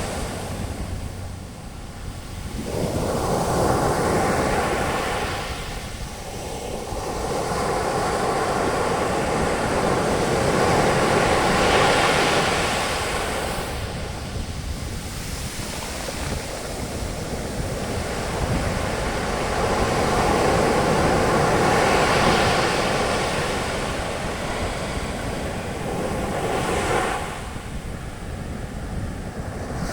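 Ocean surf breaking and washing up a beach as foamy wave wash. The noise swells and fades in slow surges every several seconds, loudest around the middle, with a dip near the end.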